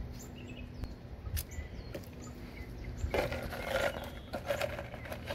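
Expanded clay pebbles for hydroponics rattling as they are poured from a plastic pot for about a second and a half, starting about three seconds in. Birds chirp now and then.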